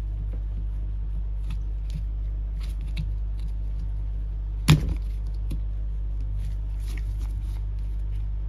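Hands working a soft rubber impeller out of a Sherwood M71 seawater pump body: faint small clicks and scrapes of handling, with one sharp knock about halfway through. A steady low hum runs under it all.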